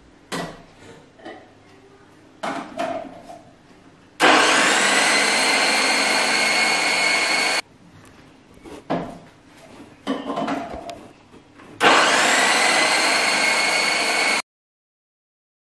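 Electric food processor slicing potatoes, run twice for about three seconds each time, its motor whine rising as it spins up and then holding steady. Between the runs come short knocks as potato pieces are dropped into the plastic feed chute.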